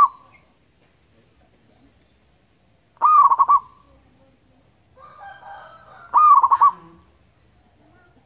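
Zebra dove (perkutut) cooing: two calls about three seconds apart, each a short rising note that breaks into a quick run of coos, with the tail of another call at the very start. Fainter chirping from other birds before the second call.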